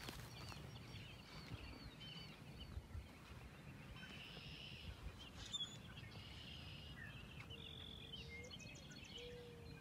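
Faint birdsong: American robins singing short, high, rising-and-falling phrases, joined near the end by a mourning dove cooing low, drawn-out notes.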